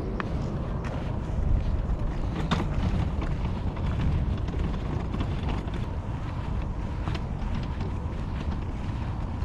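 Wind buffeting the microphone, a steady low rumble, with a few faint clicks.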